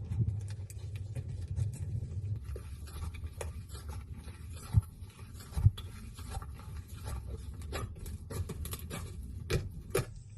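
Slime being squeezed and worked by hand, with irregular sticky crackles and small pops over a low rumble; two louder pops about five and six seconds in.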